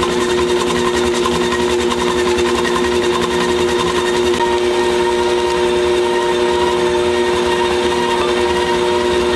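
Stand mixer running steadily on high speed, a constant motor whine with the flat beater churning a thick crumbly mixture in the steel bowl.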